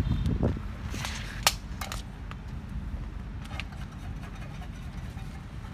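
Steady low engine rumble of work machinery, with a few sharp knocks, the loudest about a second and a half in.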